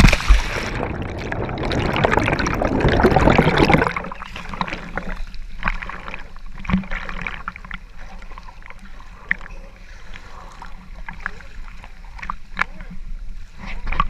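Sea water splashing and sloshing right against an action camera at the surface, loudest for about the first four seconds. After that it settles into lighter lapping with scattered small splashes and ticks.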